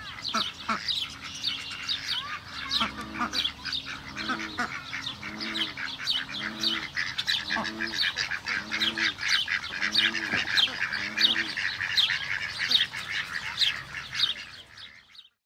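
A duck quacking in a steady, evenly spaced series, a little over one quack a second, over a dense background of high chirping from other birds. Everything fades out at the very end.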